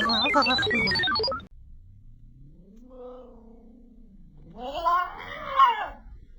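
Domestic cat caterwauling after music stops about a second and a half in. One long low yowl rises and falls, then a louder, higher, wavering yowl follows.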